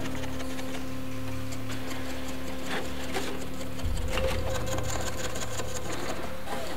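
Hand tapestry weaving at a loom: scattered light clicks and taps of bobbins and beating against the warp threads. Underneath runs a steady low hum with held tones; about four seconds in, one tone stops and the hum deepens.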